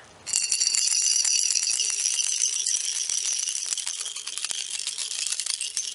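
Small metal rifle parts clattering inside a glass jar of cleaning liquid as the jar is shaken hard by hand, a makeshift stand-in for an ultrasonic cleaner to scrub the parts clean. A fast, steady rattle.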